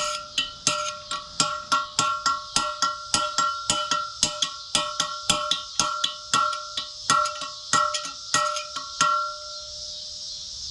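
Hammer blows on a punch driving a steel bearing race into a cast wheel hub, about three ringing pings a second; the solid pinging is the sign of the race bottoming out in its seat. The hammering stops about nine seconds in.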